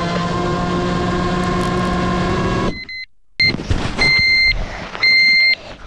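FPV quadcopter's motors whining at a steady pitch, cutting off suddenly a little under three seconds in as the drone goes down; the pilot blames the crash on strong radio interference. Then a high electronic beeper sounds in short beeps about once a second.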